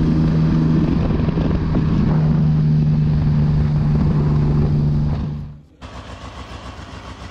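Triumph Trident three-cylinder motorcycle engine running at steady cruising speed, a loud drone held at one pitch. It cuts off suddenly about five and a half seconds in, giving way to a quieter, steady engine sound.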